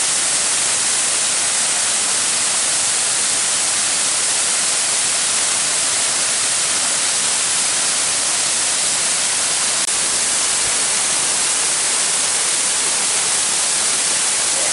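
Waterfall rushing close by: a loud, steady, even hiss of falling water.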